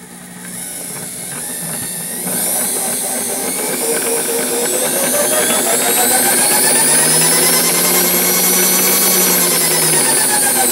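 Servo 140 milling-machine power feed's motor and gearing running in reverse, with a whine that starts at once. The pitch climbs over several seconds as the speed control is turned up, holds, then falls again near the end as it is turned back down.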